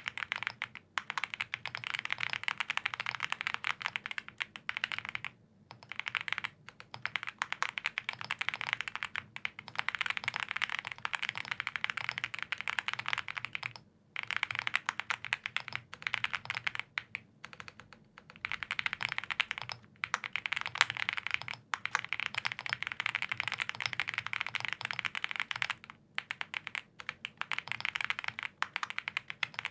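Continuous fast typing on a custom mechanical keyboard with lubed Gazzew Boba U4T tactile switches on a POM plate in an Owlab Spring case, with GMK Klassiker keycaps: a dense run of muted clacks, broken by short pauses every few seconds.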